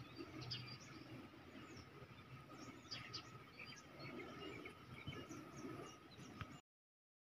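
Faint outdoor birdsong: many short, high chirps and calls from several birds, over a steady thin high tone. It cuts off abruptly to silence near the end.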